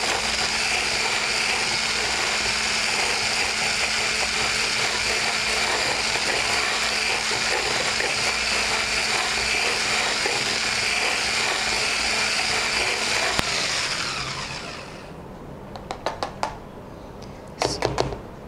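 Electric hand whisk (a stick mixer with a wire whisk attachment) running steadily while whipping egg white and sugar into meringue. It winds down and stops about fourteen seconds in, followed by a few sharp taps and clicks.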